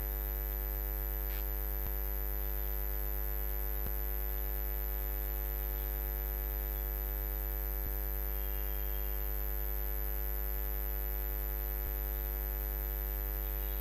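Steady electrical mains hum, with a buzz of many evenly spaced overtones and a thin high whine above it. A few faint ticks come now and then.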